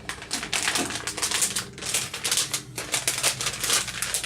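Rapid, irregular clicking and rustling of hands handling computer hardware and its packaging.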